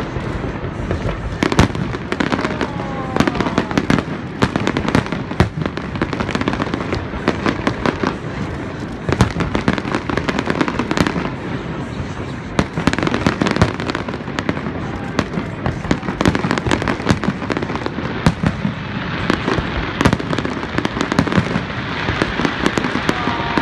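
Fireworks display: a dense, unbroken run of shell bursts, bangs and crackling going off in quick succession.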